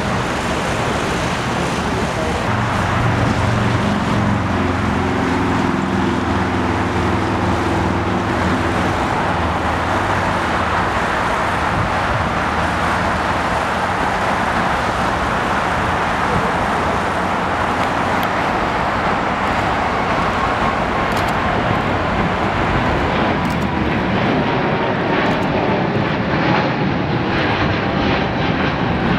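A Boeing 777-300's twin jet engines at takeoff thrust: a steady, loud jet roar. Over the last several seconds a faint tone slides slowly down in pitch.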